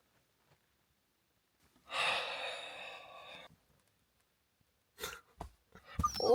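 A breathy sigh or exhale about two seconds in, then a few soft clicks and rustles. Near the end a dog starts to whine in high, gliding cries.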